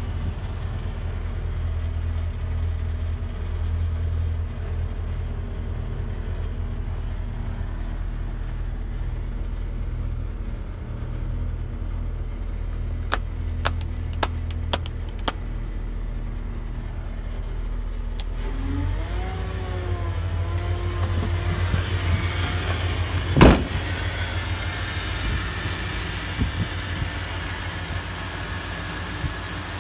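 The truck's 8.1-litre Vortec V8 gasoline engine idling steadily. A few sharp clicks of the cab's rocker switches come around the middle, and a single loud knock comes later.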